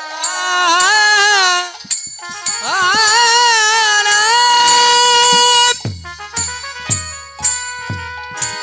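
Kirtan music with no words: a melody of long held notes that slide up into pitch, over cymbal clatter. Several deep drum strokes come in the second half.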